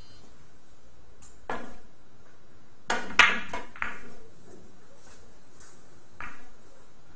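Billiard balls clicking sharply against one another during a shot in Italian billiards: a click, then a loud cluster of clicks about three seconds in, another just after, and a last one near the end.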